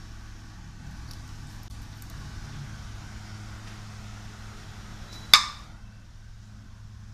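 A single sharp glass clink with a short ring about five seconds in, a glass culture flask knocking against glass or the tile floor, over a steady low hum.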